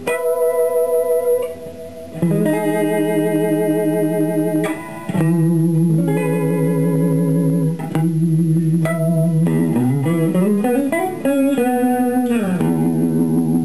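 Electric guitar chords from a 1982 Fender Stratocaster's middle single-coil pickup through a Danelectro Cool Cat Vibe pedal and a silverface Princeton Reverb amp, with the vibe set fully wet at maximum speed and intensity: a fast, deep, even throb on every chord. Near the end a chord slides up and then back down.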